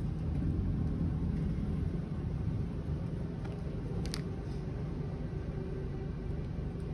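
Steady low background rumble, with one brief sharp click about four seconds in.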